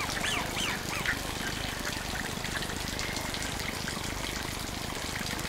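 Steady trickle of running water flowing into a pond, with a few brief high calls in the first second.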